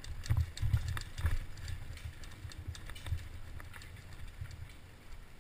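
Giant Faith 2 downhill mountain bike rattling over a rocky forest trail at speed, heard through a helmet-mounted camera: irregular dull thumps and sharp clicks, heaviest in the first second and a half, then easing to a lower rumble with scattered clicks.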